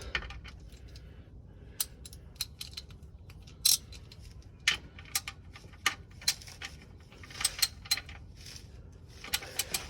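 Irregular sharp metallic clicks and clinks of a hand tool working the 17 mm oil drain plug of a Mitsubishi Evo X as it is screwed back in and snugged up, several coming close together near the end.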